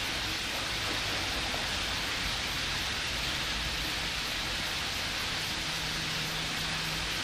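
Steady rushing of water, an even hiss with no breaks, with a faint low hum joining in the second half.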